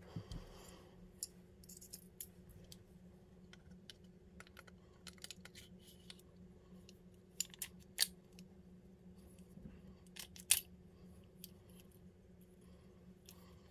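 Light metallic clicks and clinks of a Springfield Armory 1911 Ronin's steel slide and frame being handled and slid together during reassembly, with two sharper clacks in the second half. A faint steady hum runs underneath.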